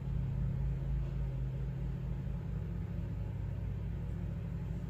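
A steady low hum, strongest in the first half, with no distinct events over it.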